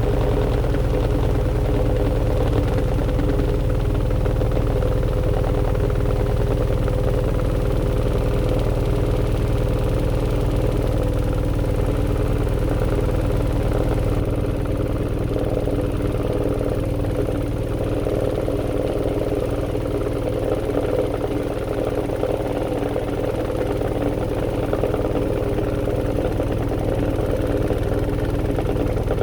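AQUA AQW-DX12M drum washing machine spinning at high speed in its 1200 rpm spin. Its motor makes a steady hum over a low rumble, picked up through the machine's lid. The mix of tones shifts slightly about halfway through.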